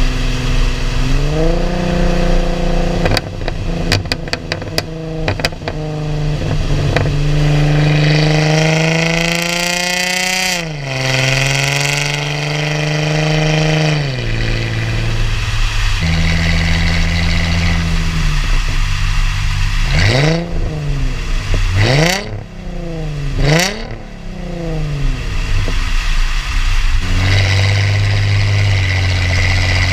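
Chrysler Crossfire SRT-6's supercharged 3.2-litre V6 through a straight-piped cat-back exhaust, revved from idle. The revs are held, then rise higher and drop back. Then come three quick blips, with sharp crackles and pops around the revs, before it settles back to idle.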